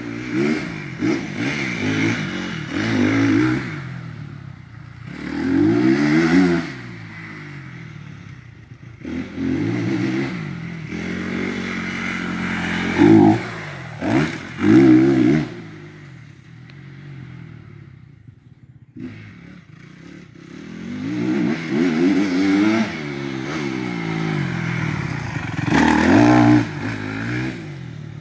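Motocross dirt bike engine revving hard and easing off again and again as it rides the track, getting louder and fading away several times as it comes near and goes past. The loudest bursts come around the middle and near the end.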